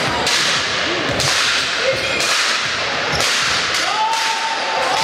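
Basketball being dribbled on a hardwood court, sharp bounces about once a second, over the steady noise of the sports hall.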